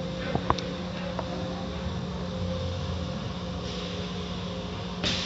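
Automatic car wash heard from inside the car: water and foam splashing over the windshield and hood over a steady machinery hum. A couple of sharp knocks come about half a second in, and a louder swish near the end.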